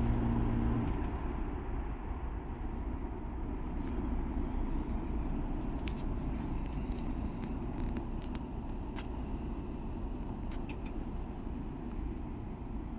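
Daikin multi inverter heat pump outdoor unit in its defrost cycle: a steady hum cuts off about a second in, leaving a steady rushing noise with scattered light ticks.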